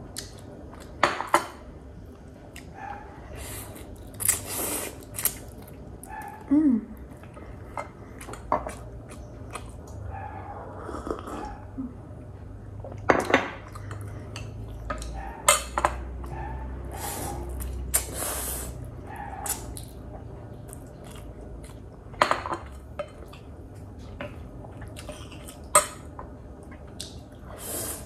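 Eating noodles from a bowl with chopsticks and a metal spoon: scattered clicks and clinks of the utensils against the bowl, with a few slurps and some chewing.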